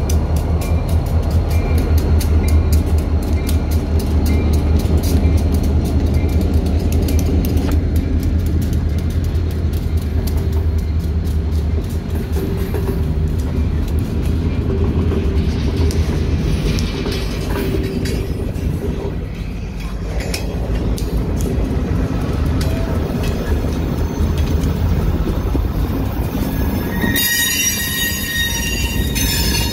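Union Pacific diesel freight train passing slowly along a street track: the locomotives' deep engine rumble for the first dozen seconds, then freight cars rolling by with wheel and rail clicking. Near the end a high-pitched metal wheel squeal sets in.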